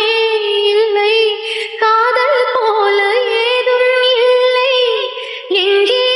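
Music with a high female voice singing a sustained, wavering melody, with two short dips between phrases.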